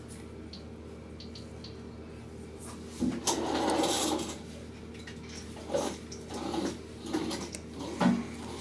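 Hands handling a plastic glue bottle against a phone's display frame: a rustling, scraping stretch about three seconds in lasting about a second, then several shorter rustles and soft knocks, over a steady low hum.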